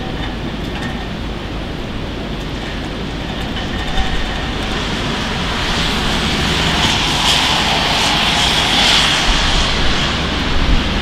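A train running along the tracks: a steady rushing rumble that grows louder after about five seconds.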